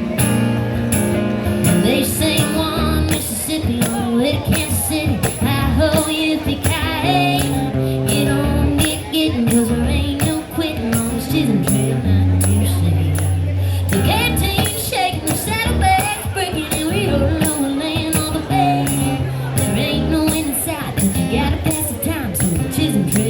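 Live band music playing a country-style song: a steady high rattling beat on top, a bass line moving between held notes, and a gliding melody line over them.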